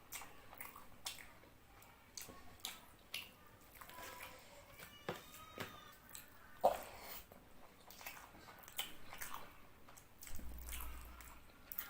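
Close-up chewing and mouth sounds of a person eating fish curry and rice by hand: irregular wet smacks and clicks, one louder smack about two-thirds of the way through.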